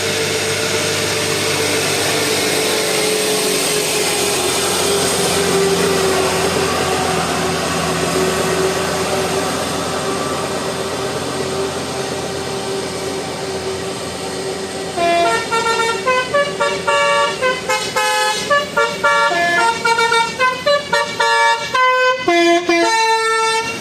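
Bus telolet horn, the melodic multi-tone Basuri type, playing a quick tune of short stepped notes from about fifteen seconds in, after a long steady drone with traffic noise.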